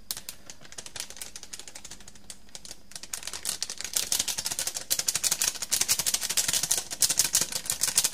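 Dense run of tiny crackling clicks as turmeric is added over salt-packed fish, the coarse salt grains rattling and crunching under it. It is sparse at first and grows denser and louder about three seconds in.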